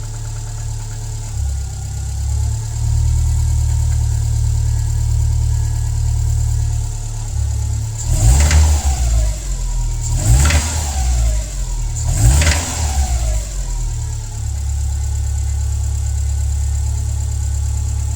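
Subaru WRX STI (VAB) 2.0-litre turbocharged EJ20 flat-four idling, then revved three times in quick succession about two seconds apart, each rev dropping back to idle. The engine is sold as running but with an abnormal noise.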